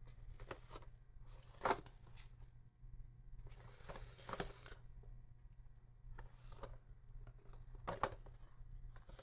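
Cardboard packaging being handled: scattered light rustles and small knocks, the loudest about two seconds in, over a faint steady low hum.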